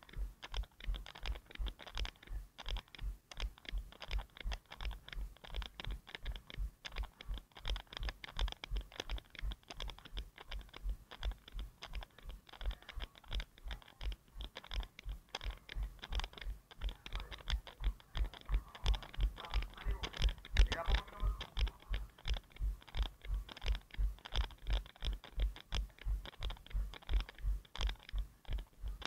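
A runner's footfalls at race pace, picked up by a head-mounted action camera as steady dull thumps about three a second, one with each stride.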